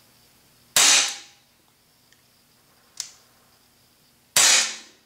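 Gamo PT-85 CO2 blowback pellet pistol firing two shots about three and a half seconds apart, each a sharp crack that rings briefly in the garage. A lighter single click comes between them.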